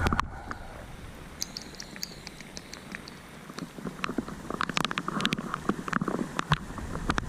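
Rain pattering, with scattered irregular taps and clicks that come thicker in the second half.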